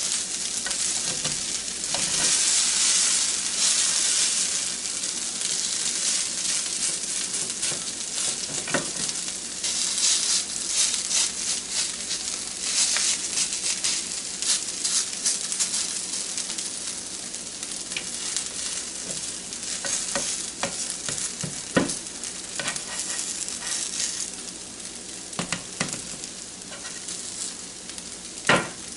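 Shredded potato hash browns with onion and sweet peppers sizzling in a Copper Chef square pan, nearly done frying. A slotted spatula stirs and turns them, scraping and knocking on the pan now and then, with one sharper knock near the end. The sizzle eases off toward the end.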